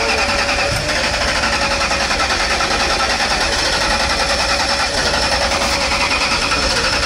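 Race car engine running loud with a rapid, even choppy pulse.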